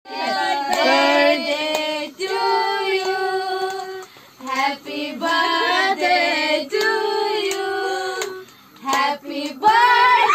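Girls' voices singing together without accompaniment, in sung phrases separated by short breaks.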